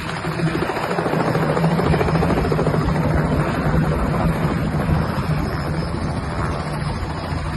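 Robinson R44 helicopter running steadily: a loud, even hum with a rapid pulsing beat from the rotor.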